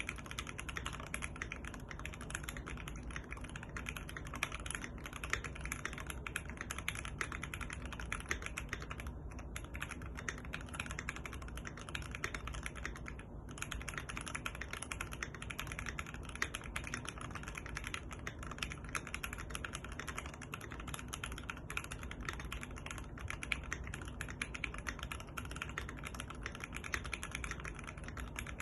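Continuous fast typing on a Keychron Q1 mechanical keyboard with lubed and filmed Gateron Phantom Red linear switches, a dense run of keystroke clacks with short pauses about nine and thirteen seconds in. The case is dampened with tape and foam mods.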